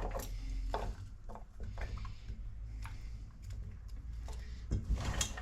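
Chopped potatoes, onion and carrot cubes being moved from a mixing bowl into a clay roasting pan, making a scatter of small irregular clicks and soft knocks, with a louder clatter about five seconds in.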